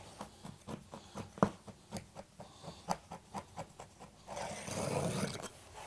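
A hook knife tucking a trimmed carpet edge down between the carpet and the baseboard: a run of light taps and clicks, then a longer rustling scrape of carpet a little over four seconds in.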